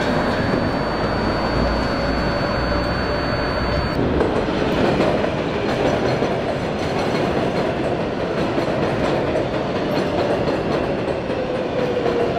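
Elevated subway train running on the overhead steel structure: a steady rumble and clatter with a faint whine that slowly drifts in pitch.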